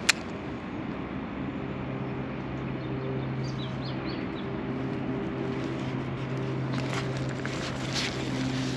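A steady low engine hum at an even pitch, with a few short bird chirps about three and a half seconds in.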